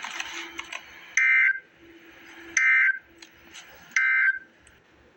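Three short, identical bursts of Emergency Alert System SAME digital data tones, about a second and a half apart: the End of Message code that closes an EAS alert. A background hiss runs under them.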